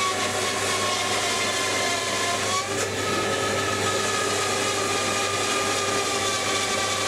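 A workshop power tool's motor running steadily in the background, a continuous whine whose pitch shifts slightly upward about three seconds in.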